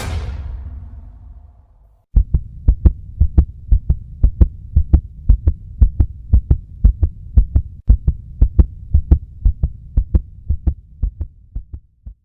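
A whoosh at the start, then a rhythmic low thumping with sharp clicks, about four beats a second, over a low hum. The beat slows and fades near the end.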